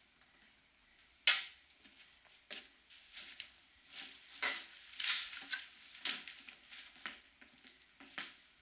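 Broom sweeping broken glass across a tiled floor: a run of short scraping strokes with glass clinking, the sharpest about a second in.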